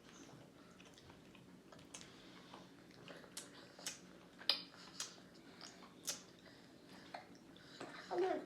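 Babies eating finger food: scattered sharp clicks and wet smacks of chewing and of food and hands on high-chair trays, with a short baby vocal sound near the end.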